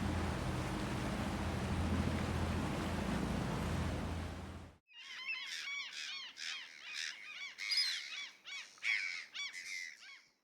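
A steady rushing, sea-like noise with a low hum underneath, which cuts off abruptly about halfway through. It is followed by birds calling in quick, harsh, repeated calls.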